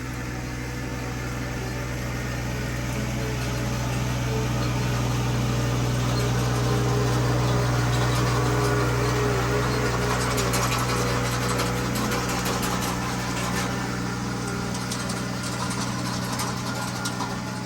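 Engine of a four-wheel-drive utility vehicle running steadily at a constant speed, with light crackling and rattling in the second half.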